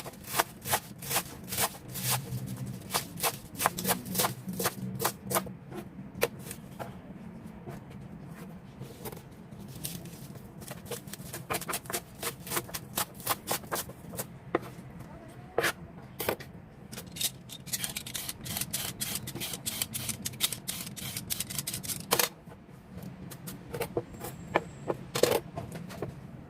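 Rapid, irregular sharp taps and knocks of kitchen prep work, coming in clusters with short pauses, over a low steady hum.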